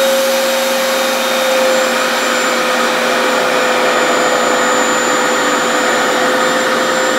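Revair reverse-air hair dryer running steadily on low heat, its suction motor pulling a section of hair into the wand: a loud rush of air with a steady whine over it.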